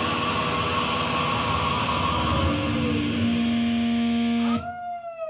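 Live band playing loud, dense, distorted noise-rock, a wall of sound with a few held tones, which cuts off suddenly about four and a half seconds in, leaving only a few faint gliding, falling tones.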